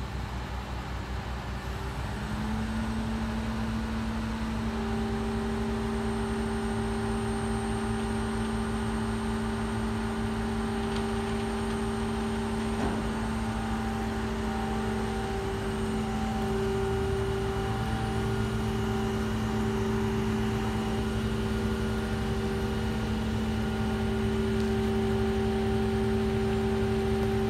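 Crane engine running steadily under load while it holds and swings a triple palm tree on its cable. The engine revs up about two seconds in and holds a steady drone after that.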